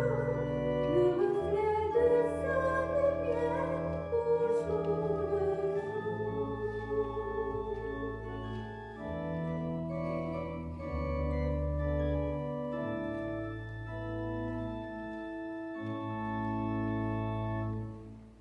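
Organ playing sustained chords with a slow-moving bass line, with a singing voice with vibrato over it in the first few seconds; the final chord cuts off near the end.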